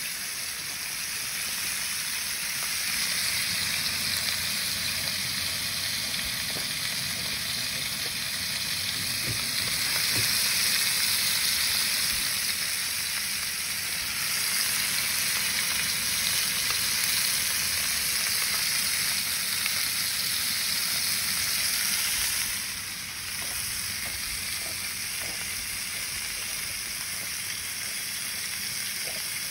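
Fish frying in hot oil, a steady sizzle that is a little louder around the middle.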